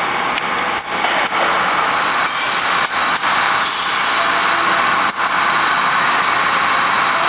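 Steady workshop machinery noise, with a few sharp metallic clicks and clinks from steel mould parts and bolts being handled.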